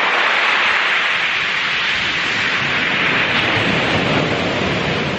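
Rough sea surf breaking and washing up a shingle beach: a loud, steady rushing hiss of water over pebbles.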